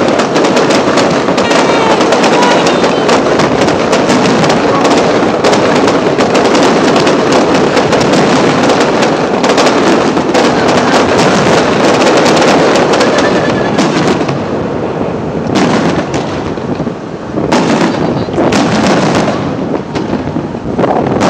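Aerial fireworks shells bursting and crackling in rapid, dense succession, thinning out about two-thirds of the way through to separate bangs with short gaps between them.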